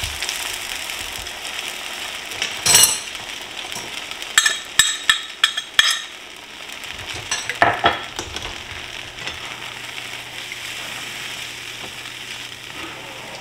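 Sausage gravy mixture sizzling in a hot nonstick skillet of browned sausage and drippings, the sizzle slowly dying down as the cold liquid takes the heat. Several sharp clicks and taps come about three seconds in and again between about four and eight seconds in, and toward the end a plastic slotted spatula stirs and scrapes through the gravy.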